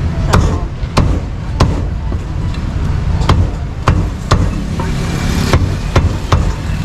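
Cleaver chopping roasted meat on a chopping block: about ten sharp, irregular chops, roughly one every half second to a second. Steady traffic rumble underneath.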